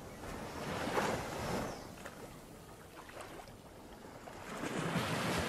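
Underwater water noise picked up by a camera held below the sea surface: an even, muffled rushing hiss that swells about a second in and again near the end, with a few faint clicks and crackles.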